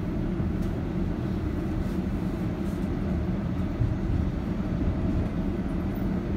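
Steady low rumble of a tram running along the street, heard from inside the car.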